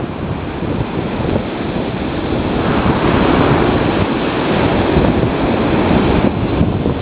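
Strong wind buffeting the microphone over the wash of surf on the beach, growing louder about two and a half seconds in and easing near the end.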